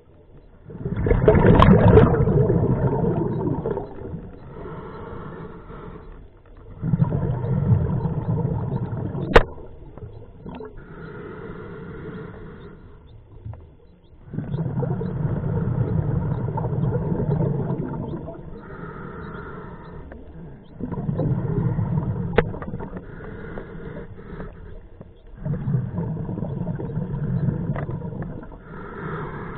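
Scuba diver breathing through a regulator: a loud rush of exhaled bubbles about every six seconds, five times, each followed by a quieter hiss of inhaling. Two sharp single clicks stand out, about nine and twenty-two seconds in.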